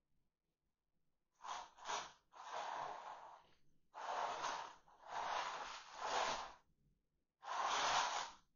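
Metal pan of dry pet food scraping across a concrete floor in a series of short drags with brief pauses between, as a raccoon tugs it along by the rim.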